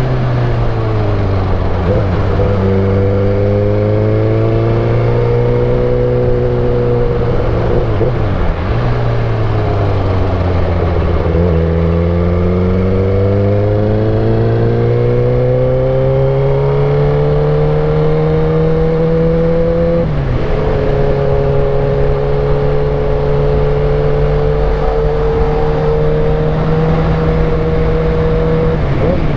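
Suzuki GSX-R1000 K8's inline-four engine running while riding, its pitch rising and falling with the throttle. About two-thirds of the way through the pitch drops suddenly, as on an upshift, then holds steady.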